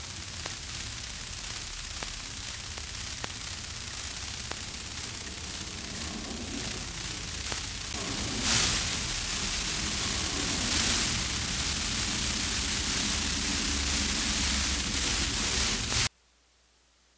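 Steady outdoor hiss with wind rumbling on the microphone. It grows louder about eight seconds in and cuts off suddenly near the end.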